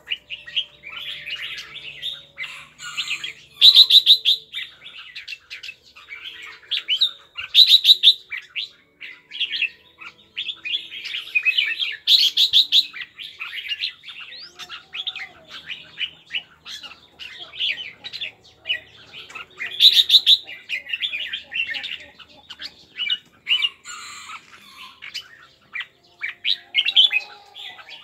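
Red-whiskered bulbul giving rapid, chattering kek-kek calls, with several louder bursts.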